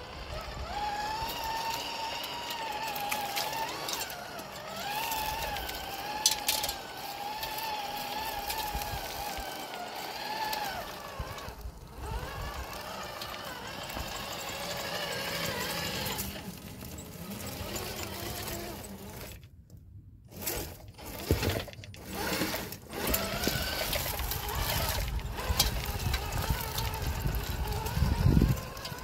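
Small electric motor and gears of a small-scale RC crawler whining as it is driven, the pitch wavering with the throttle for several seconds at a stretch, broken by knocks and clunks and a low rumble with a thump near the end.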